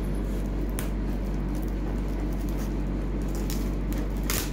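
Scissors cutting through foil gift wrap, with a short crinkle about a second in and a louder, sharper one near the end, over a steady low hum.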